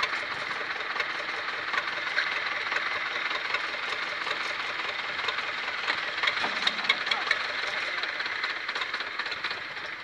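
Diesel farm tractor engine running steadily while the tractor sits bogged down in deep paddy-field mud.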